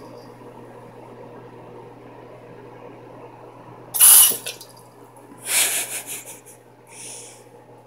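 Bathroom sink faucet running in short spurts: water hisses and splashes into the basin about four seconds in, again about a second and a half later, and more faintly once near the end, over a steady low hum.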